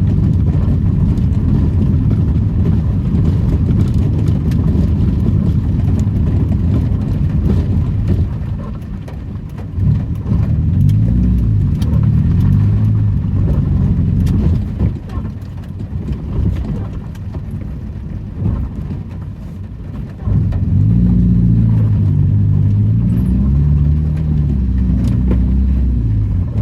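Old Daihatsu Charade's engine and road noise while driving, the engine note rising and falling with the throttle and gear changes. It eases off about eight seconds in and again near the middle, then picks up strongly about three-quarters of the way through.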